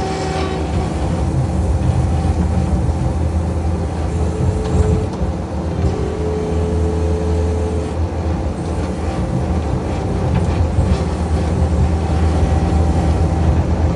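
A large engine running steadily with a low drone, and a higher whine that comes and goes.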